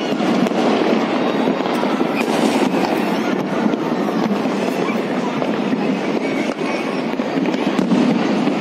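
Dense, unbroken barrage of fireworks and firecrackers going off across a city: many overlapping bangs, pops and crackles.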